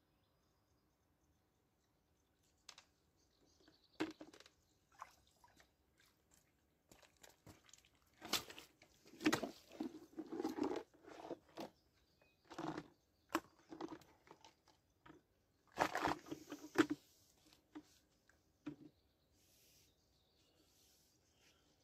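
Irregular crunching, rustling and knocking close to the microphone, starting about three seconds in and loudest in two clusters around the middle and about two-thirds through: a person moving about and handling things at the water's edge.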